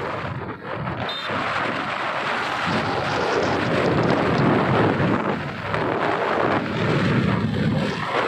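Wind buffeting the microphone on a moving TVS Ntorq scooter, with the scooter's engine and road noise mixed in, rising and falling unevenly.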